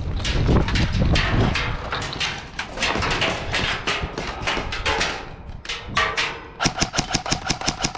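Hurried running footsteps with rattling gear, then a fast, even string of sharp cracks near the end, about eight a second, like an airsoft rifle firing full-auto.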